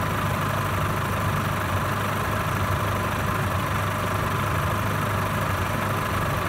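Opel Y22XE 2.2-litre sixteen-valve four-cylinder petrol engine idling steadily, with no change in revs.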